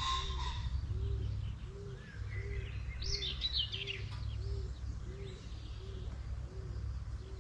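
Wild birds chirping and singing in high twittering phrases, over a soft, low, arching note that repeats evenly about every two-thirds of a second. A steady low rumble runs underneath.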